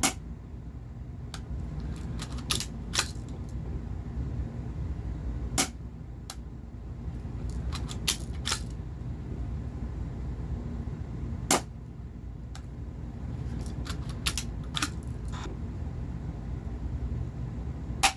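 Scattered sharp clicks and knocks at irregular intervals, two of them louder, over a steady low hum.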